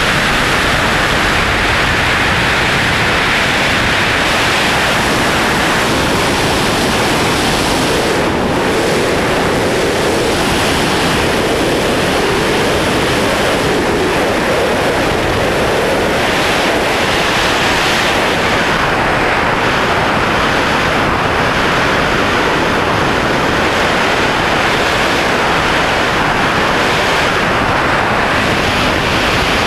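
Loud, steady rush of airflow over a body-mounted camera's microphone during wingsuit flight.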